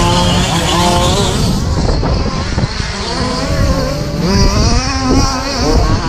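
Radio-controlled short-course racing trucks running on an off-road track, their motors whining and repeatedly rising and falling in pitch as they accelerate and back off. Wind rumbles on the microphone underneath.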